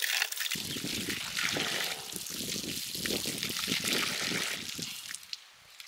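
Water trickling and pouring, with a low rumble of handling or wind on the microphone that stops shortly before the end.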